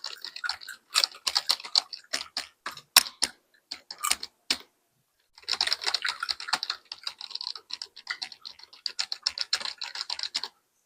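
Loud typing on a computer keyboard, with crisp key clicks close to the microphone. Scattered keystrokes come first, then a short pause about halfway, then rapid continuous typing that stops shortly before the end.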